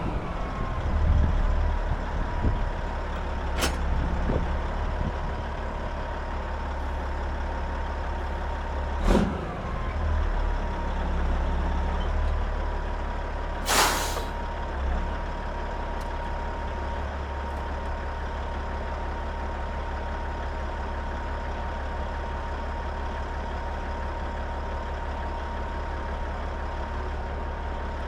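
Diesel semi truck idling with a steady low rumble and a faint steady high tone, broken by a few short clicks and a sharp burst of air hiss about halfway through, typical of the truck's air brake system venting.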